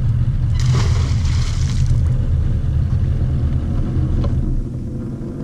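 Outboard boat motor idling with a low rumble that cuts off about four and a half seconds in. A brief rushing noise, lasting about a second, comes about half a second in.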